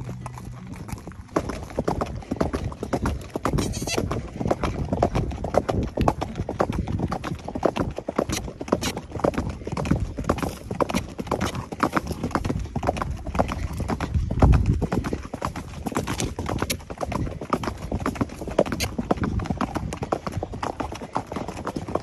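Hooves of Criollo horses clip-clopping along a trail, a dense run of hoofbeats from more than one horse, with one louder low thud about fourteen and a half seconds in.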